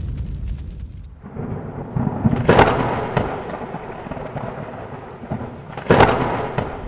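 Intro sound effects: a thunder-like rumble and hiss, with two sharp loud hits about two and a half and six seconds in.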